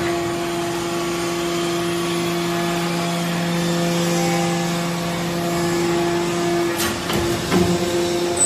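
Hydraulic metal-chip briquetting press running under load while the ram compresses metal shavings into a briquette: a steady hum, whose lower tone drops away about seven seconds in, followed by a couple of sharp clanks.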